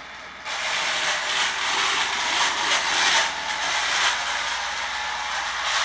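Small DC gearmotors and wheels of an Arduino-controlled rover running, a rough hissing, rubbing noise that gets suddenly louder about half a second in and then rises and falls unevenly.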